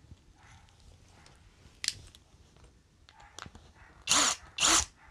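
A sharp click about two seconds in, then a cordless drill run in two short bursts near the end, each spinning up briefly, as it drills a test hole into a small wood offcut to check that the bit is not too big for the screws.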